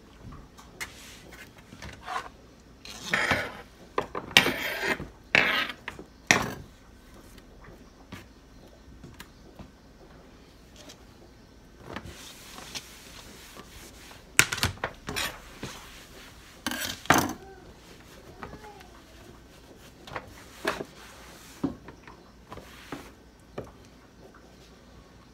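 Cloth rubbing and scrubbing across a kitchen countertop, with scattered knocks and scrapes of dishes and objects being moved. The noise comes in uneven bursts, loudest in two spells, early on and about halfway through, with quieter rubbing between.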